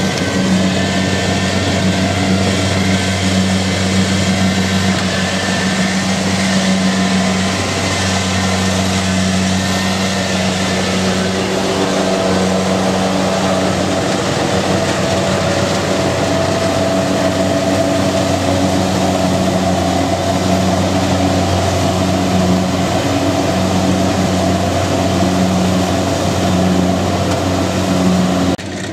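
Large diesel engine running steadily at a constant speed, with a low, even hum and a rougher mechanical noise over it. The sound drops off abruptly just before the end.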